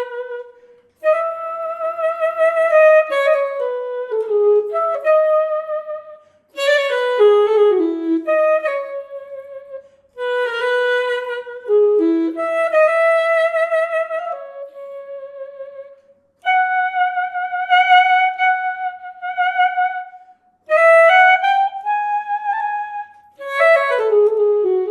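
Sampled saxophone from the VHorns plugin, played live from an EWI wind controller: a solo melody in short phrases with wide, wavy vibrato, broken by brief pauses between phrases.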